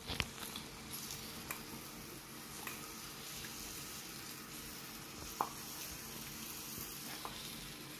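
Melted jaggery, cooked down without water, bubbling and sizzling steadily in a nonstick frying pan, with a few light taps as grated coconut goes in on a wooden spatula.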